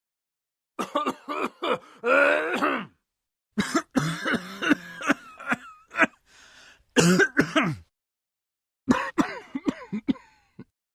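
A person coughing and clearing their throat in four short bouts separated by dead silence. Each bout is a run of sharp coughs, some with a drawn-out, pitched rasp.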